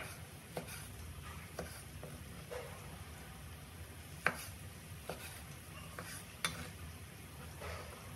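Cleaver slicing tomato on a wooden chopping board: irregular knocks of the blade striking the board with softer cutting sounds between, the loudest knocks at the very start and about four seconds in.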